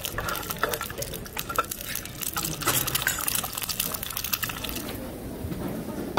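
An egg frying in hot oil in a pan, sizzling with dense crackles; the sizzle falls away about five seconds in.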